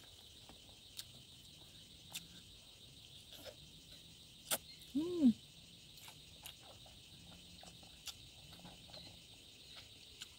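Eating by hand with the mouth close to the microphone: scattered small smacking and chewing clicks, and a short hummed "mm" about five seconds in, over a steady high drone of crickets.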